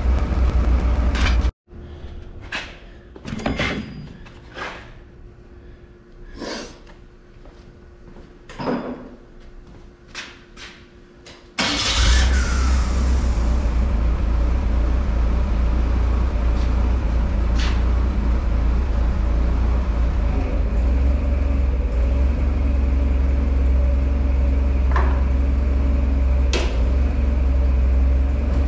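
A loud, steady low rumble of running machinery that cuts off abruptly about a second and a half in. There follows a quieter stretch of scattered sharp knocks and metal clanks over a faint steady hum, until the rumble returns suddenly about twelve seconds in and runs on steadily.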